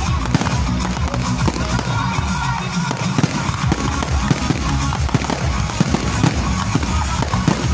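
Fireworks display: many aerial shells bursting in quick succession with crackling, over electronic dance music with a steady bass.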